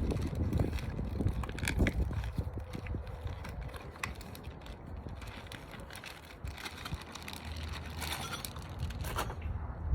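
Handling noise: scattered small clicks, taps and rustling of tools and parts being moved about, with a few low bumps in the first couple of seconds.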